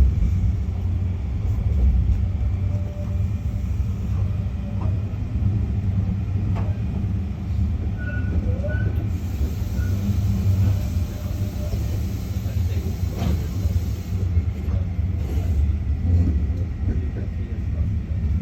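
Tram running on rails: a steady low rumble with occasional faint clicks.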